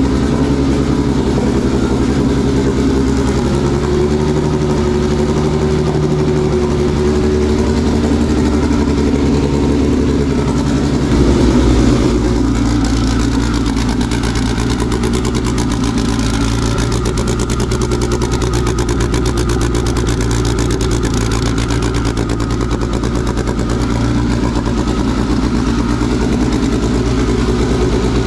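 Homemade 3-liter turbocharged sheet-metal engine running steadily. About eleven seconds in its note shifts lower and it briefly gets louder, then it settles and runs on evenly.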